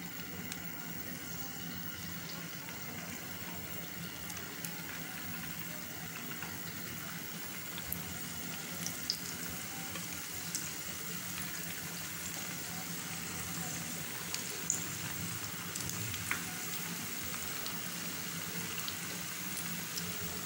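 Potato garlic rings deep-frying in hot oil: a steady sizzle with scattered small pops and crackles, and a few sharper pops.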